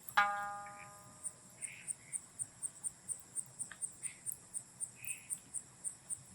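A cricket chirping steadily at a high pitch, about three chirps a second, with a few faint crackles and one sharp pop from a driftwood campfire. A single plucked sanshin note rings and fades away during the first second.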